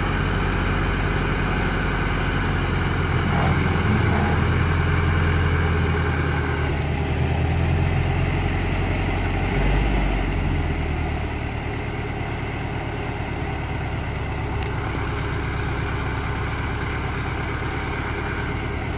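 A vehicle engine idling steadily. Its note changes about ten seconds in, then settles lower and slightly quieter.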